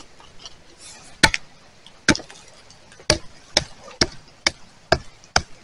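A hand hoe (zappa) chopping repeatedly into hard, stony ground while digging out a metal detector target. About eight sharp strikes, about a second apart at first and coming faster toward the end.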